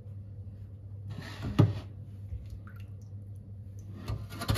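Kitchen handling sounds: a short rustle ending in a sharp knock about a second and a half in. Right at the end, a peeled raw potato starts rasping across the teeth of a metal box grater.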